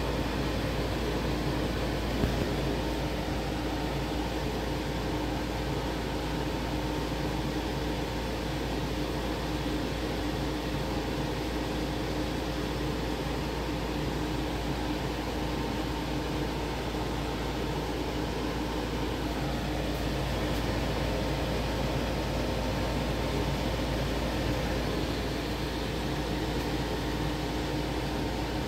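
A machine running steadily: an even, airy fan-like noise with a constant low hum under it, and one small click about two seconds in.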